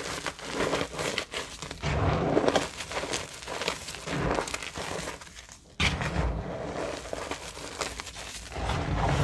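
Reformed gym chalk being crushed and crumbled by hand in a bowl of chalk powder: dense crunching and crackling with soft powdery crumbling. It goes quiet for a moment about five and a half seconds in, then starts again abruptly.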